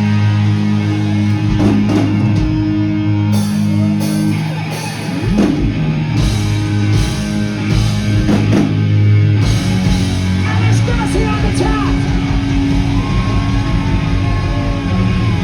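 Live band playing loud hard rock, with electric guitar chords over a driving drum kit.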